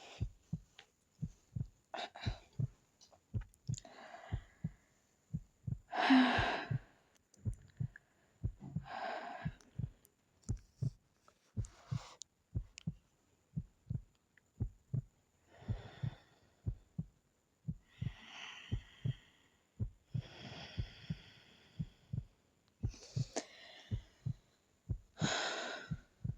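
A sleeping woman breathing slowly and audibly, one hazy breath every two to three seconds, the loudest about six seconds in. Underneath runs a steady heartbeat, short low thumps in pairs.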